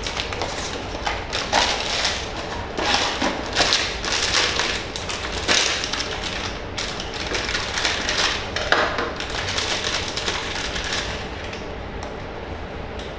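Cardboard blind box and its inner packaging being opened and handled by hand: irregular rustling, crinkling and tapping, which quietens for the last couple of seconds.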